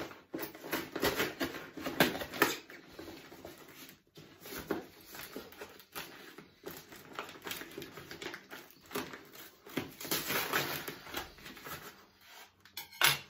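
Brown paper parcel wrapping rustling and crinkling, with irregular scratching as a knife slits the paper.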